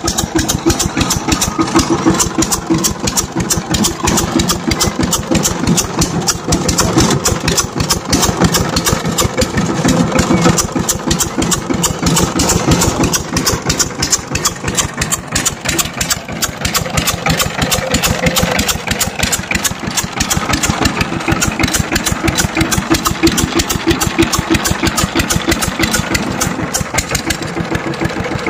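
Two-wheel power tiller's single-cylinder diesel engine running steadily, with a fast, even beat of firing strokes and no stalls or pauses.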